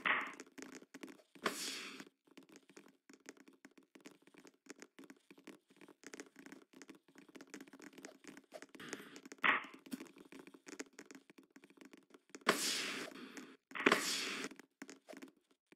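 Scattered thuds, taps and knocks on a volleyball court, with louder hits about a second and a half in and about nine and a half seconds in, and two longer louder bursts of noise near the end.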